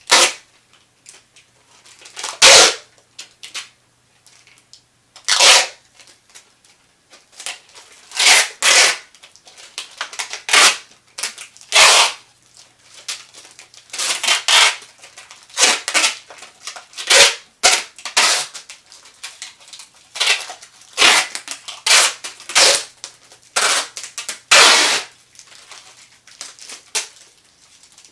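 Adhesive tape pulled off the roll in sharp, short rips, a couple of dozen at uneven intervals, some in quick pairs.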